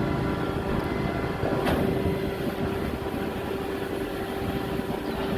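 A cargo ship's machinery running steadily: a low rumble with a constant hum tone over it. A short click sounds about two seconds in.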